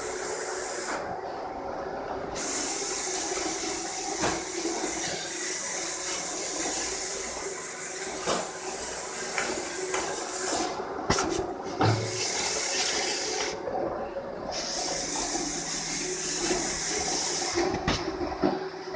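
Roomba robot vacuum running, a steady hiss that drops out briefly three or four times, with a few sharp knocks along the way.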